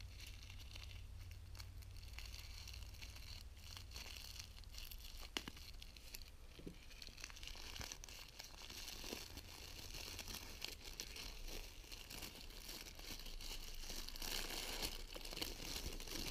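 Packaging wrapping being crinkled and torn open to free small toy weapon accessories: faint crackling and tearing with many small clicks, getting louder in the last couple of seconds.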